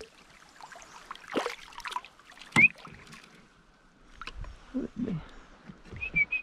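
Irregular knocks and handling noises in a wooden drift boat as fly line is stripped in to land a hooked smallmouth bass. The loudest is a sharp knock with a short rising squeak about two and a half seconds in, and a few short high chirps come near the end.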